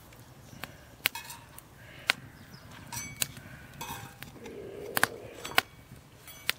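Irregular sharp snaps and light metallic clinks, the loudest about a second apart, from a wood fire burning under a hot sheet-metal bread griddle (saj); a couple of the clinks ring briefly.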